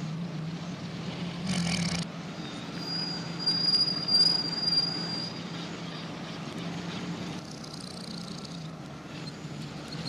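Cartoon post van engine sound effect played backwards: a steady low running hum. There is a brief burst of hiss about one and a half seconds in, and a thin high whistle from about three to five and a half seconds.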